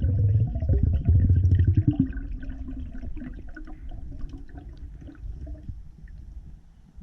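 Muffled underwater rush and gurgling of water around the camera housing, loud and rumbling for about two seconds, then fading to fainter gurgles.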